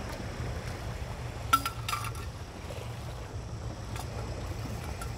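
Steady low rumble of wind and harbour ambience, with two sharp clinks about a second and a half and two seconds in as fishing gear is handled.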